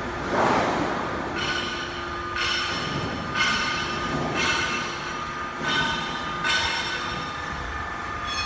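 Automatic HVAC duct production line running: a steady machine hum, a short rushing hiss about half a second in, then a series of high-pitched metallic squeals of about a second each, coming roughly once a second.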